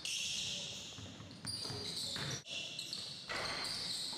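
Basketball play on a hardwood court: sneakers squeaking in repeated high squeals and the ball bouncing on the floor.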